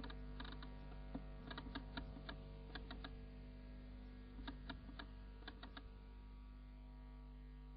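Faint steady electrical hum with many overtones, broken by scattered irregular clicks for about the first six seconds, after which the hum continues alone.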